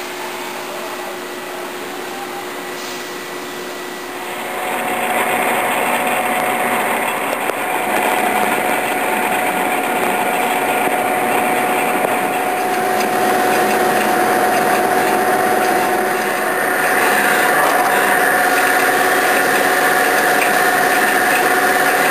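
Haas TM-1 CNC tool room mill running: a steady motor whine over a hiss, which grows louder about four seconds in and again about seventeen seconds in.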